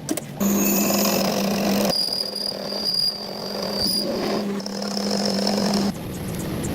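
Workshop machinery running with a steady low hum and a high-pitched whine, changing abruptly every second or two between cut sections of metalworking.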